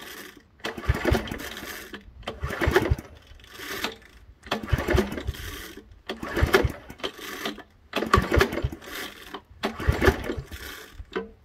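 Recoil pull-starter on a ride-on mower's 10 horsepower engine being pulled over and over, about one rattling pull every second and a half. The engine turns over with each pull but does not catch and run.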